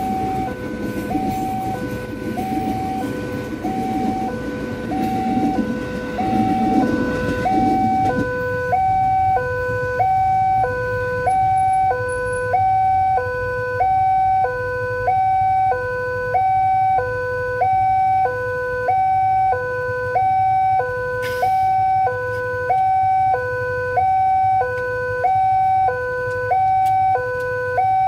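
Railway level-crossing warning alarm from the crossing mast's loudspeaker: an electronic two-tone signal alternating high and low, about one cycle a second, sounding while the barrier is down. For the first eight seconds or so a KRL electric commuter train rumbles past under it, then fades out, leaving the alarm alone.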